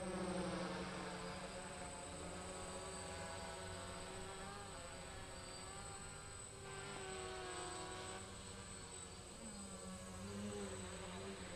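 Buzz of a DJI Flame Wheel 450 quadcopter's four brushless motors and 10-inch propellers in flight. Several pitches are layered, drifting up and down as the motors change speed, with a rise in pitch near the end.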